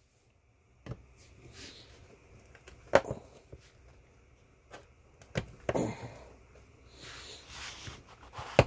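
Scattered clicks, knocks and short scrapes of hand tools working on the metal parts of a small appliance being dismantled, with a sharper knock about three seconds in and another near the end.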